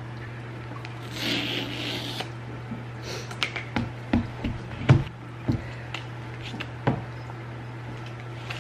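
An iPad Pro's cardboard box being handled: a soft rubbing slide about a second in, then a scattered run of light taps and knocks from fingers and the box against the table, the loudest near the middle. A steady low hum runs underneath.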